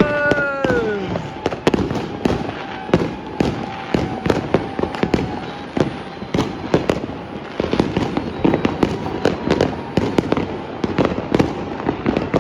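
Fireworks and firecrackers going off all around, a dense run of sharp cracks and bangs, several a second and overlapping, with a tone that falls in pitch in the first second.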